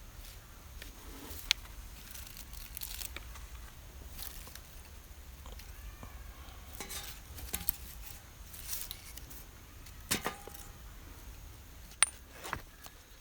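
Scattered light clinks and clicks of small hard tableware being handled, with a few sharper clicks about a second and a half in and again near the end, over a faint low rumble.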